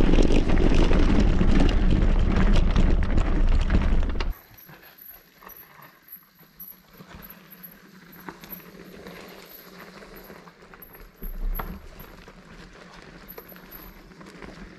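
Mountain bike on a dirt trail: loud rushing and rumbling noise on the camera's microphone for about four seconds, then a sudden cut to a much quieter stretch of scattered clicks and light knocks.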